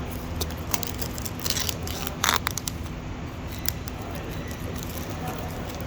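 Tablet packaging being handled and opened: scattered clicks and crinkling rustles of cardboard and plastic, with the loudest crinkle a little over two seconds in, over a steady low hum.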